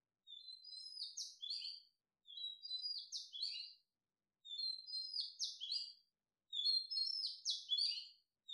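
A small bird singing a short phrase of quick high chirps, repeated about every two seconds and getting louder.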